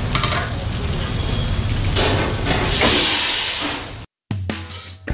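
Spinach fritters deep-frying in a large kadai of oil: a steady sizzling hiss over a low rumble. It cuts off abruptly about four seconds in, and plucked-guitar background music starts.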